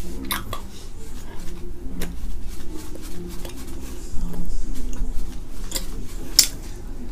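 A person chewing a gummy candy, with scattered wet clicks and smacks from the mouth and a few short, low humming sounds.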